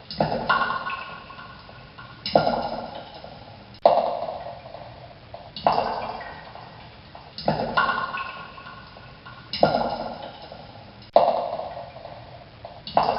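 Water droplets falling and dripping, about eight drops roughly one every one and a half to two seconds. Each drop starts sharply, then rings with a few clear tones that fade away.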